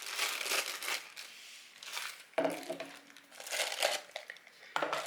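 Packaging crinkling and rustling as a boxed milk frother is handled and unpacked, in irregular bursts, with a couple of light knocks about halfway through and near the end.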